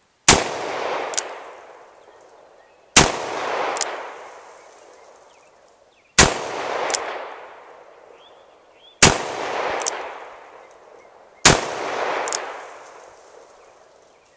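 Five shots from a Smith & Wesson Model 610 10mm revolver, fired slowly a few seconds apart with light 10mm loads. Each shot is a sharp loud report that dies away over a second or two, with a faint high tick under a second after it.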